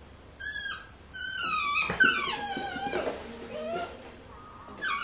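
Italian greyhound whining: about four high, gliding whimpers in a row, the loudest about two seconds in sliding down in pitch.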